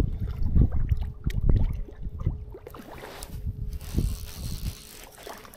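Wind buffeting the microphone and rustling handling noise, with small knocks and clicks from a fly rod and reel worked by gloved hands while playing a hooked trout. The rumble dies down near the end.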